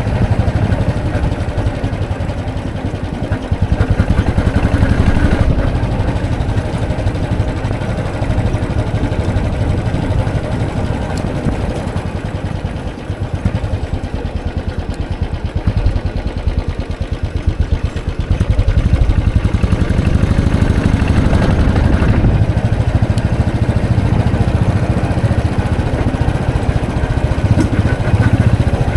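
Royal Enfield Classic 500's single-cylinder four-stroke engine running while riding, its low pulsing exhaust note easing off about halfway through and picking up again later.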